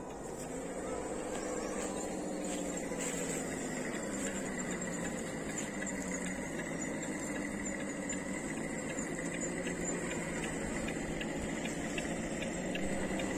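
Electric motors and gear drives of scale RC trucks whining as they crawl over leaf litter, the pitch rising and falling with the throttle.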